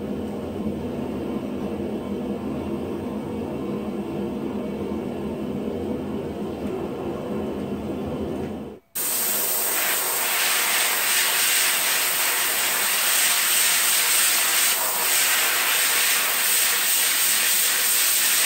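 Propane forge burner running with a steady low rush. After a cut about nine seconds in, a loud, steady hiss of compressed air from a blow gun aimed at the glowing S7 steel part sitting in an aluminum block, air-cooling it to harden it.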